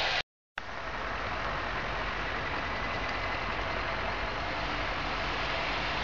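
An engine running steadily under a constant rush of noise, with a low hum. The sound cuts out completely for about a third of a second near the start.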